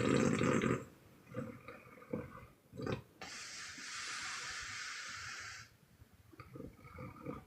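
A sleeping woman snoring: one loud snore ends just under a second in, followed by a few short, weak snorts. About three seconds in comes a long, steady hissing breath out, a puff, lasting about two and a half seconds.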